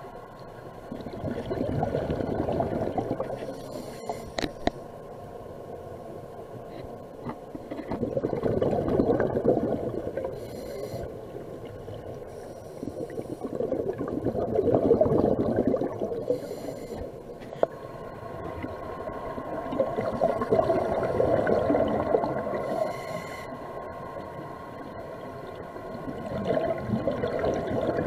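Scuba diver breathing through a regulator underwater: five slow breaths about six seconds apart. Each has a short hiss of inhalation and a longer rumble of exhaled bubbles.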